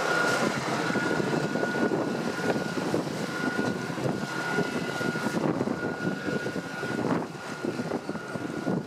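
Sailboat's auxiliary engine running under way through choppy water, with a steady high whine through it and water rushing along the hull.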